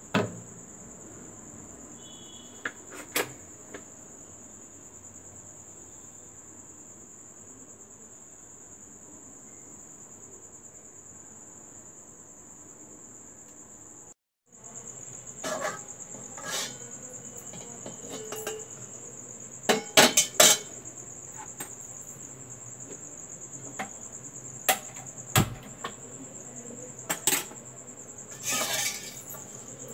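A steady high-pitched trill runs throughout, broken by a brief dropout about halfway. After the dropout, a scatter of sharp clinks and knocks of cookware and utensils around a wok, loudest about two-thirds of the way through.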